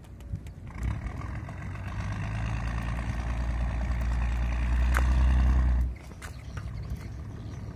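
Wooden boat's engine running, growing steadily louder for about five seconds, then dropping off abruptly about six seconds in, as it is throttled while docking.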